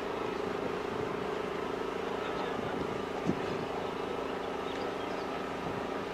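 Steady drone of a distant engine over outdoor background noise, with one short knock about three seconds in.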